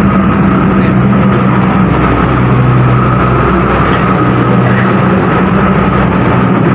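A train's diesel engine idling at a standstill: a loud, steady low hum that does not change.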